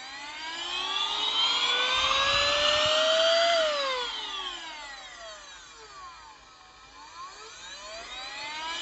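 Baseus A2 cordless car vacuum's motor whining up in pitch as it is switched on, then winding down after it is switched off about three and a half seconds in, and spinning up again near the end. Loud, showing the battery has charge.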